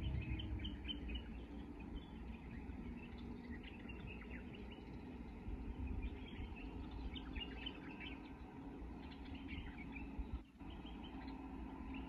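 Many small birds chirping in quick, scattered calls over a steady low background rumble, with a brief dip in the sound about ten and a half seconds in.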